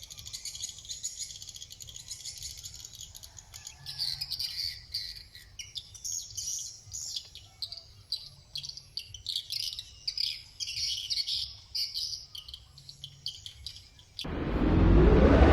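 Many edible-nest swiftlets chirping: a dense high twittering at first, then a stream of separate sharp chirps. Near the end a loud sweep rising in pitch cuts in over them.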